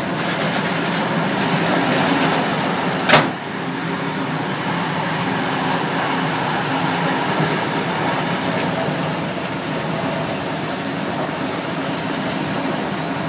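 Fiat ALn 668 diesel railcar running along the line, heard from inside its driver's cab: a steady engine hum and rolling noise. A single sharp knock comes about three seconds in.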